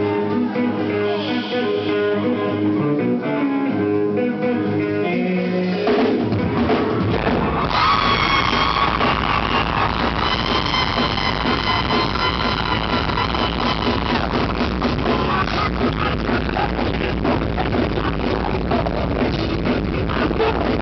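Rock band playing live and loud: a quick run of guitar notes over thin accompaniment, then about six seconds in the drums and bass come in and the full band plays on.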